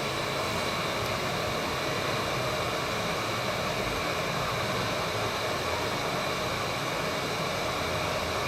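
Steady rushing hiss of air from a hot air rework station blowing on a phone mainboard to soften the underfill glue under a chip.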